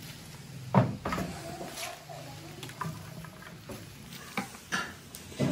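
Green bean pods and leaves being packed by hand into a clay pot: rustling and crackling, with a few sharp knocks, the loudest about a second in.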